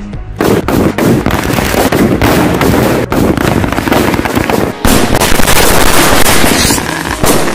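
Firecrackers going off in fast succession, a dense, loud crackle of many sharp bangs that thickens in the second half.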